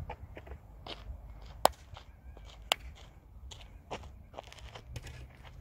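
Footsteps on dry, gravelly dirt close by: irregular short crunches and clicks, two of them sharp and loud at about one and a half and two and a half seconds in.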